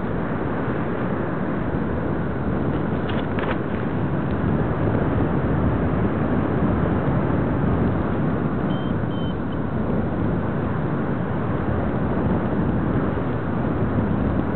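Steady wind rushing over the microphone of a camera carried on a paraglider in flight, the airflow noise heavy and low.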